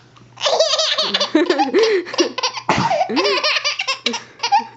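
Baby laughing hard in a string of high-pitched belly laughs and giggles, set off by a sneeze. A short, sharp sneeze cuts in a little past halfway, and the laughing starts again right after it.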